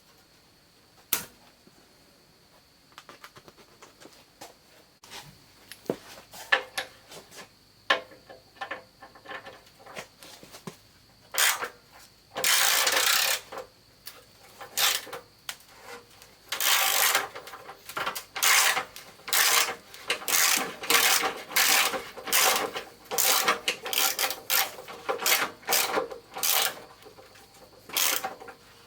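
Hand ratchet wrench clicking in quick repeated strokes as bolts are backed out of a car's front bumper support, after a stretch of scattered clicks and knocks.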